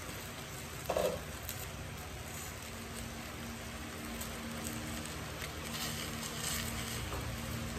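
Meat sizzling as it sears in hot oil in an uncovered stainless steel pot, a steady hiss with scattered small crackles. A single knock about a second in.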